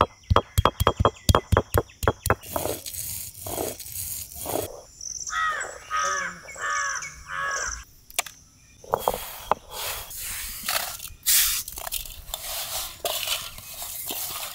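Fresh turmeric root pounded with a bamboo tube on a stone slab: fast, sharp knocks, about five a second, that stop after about two seconds. Around the middle a bird calls several times in a row, and near the end come rustling, scraping noises.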